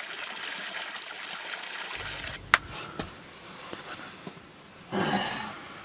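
Spring water trickling and splashing into a small stone pool, a steady hiss for about two seconds. It then gives way to quieter sounds: a single sharp click, faint light ticks, and a short hiss near the end.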